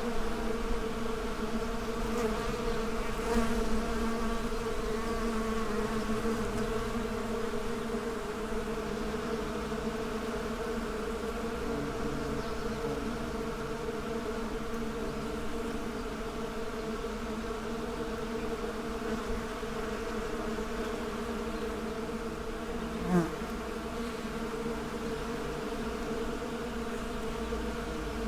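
Many bees buzzing together in a steady, humming drone. About two-thirds of the way through, a single bee passes close by, its buzz briefly louder and sliding in pitch.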